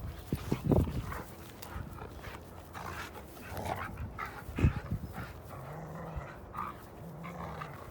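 Two dogs playing tug of war with a rope: scuffling and panting, with short dog noises and irregular thuds.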